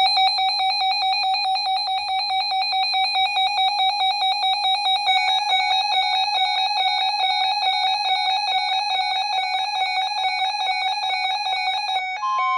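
RadioShack weather radios' alert alarms going off for a severe thunderstorm warning, a loud rapidly warbling electronic beep. A second radio's alarm joins about five seconds in, and a steady single tone starts near the end.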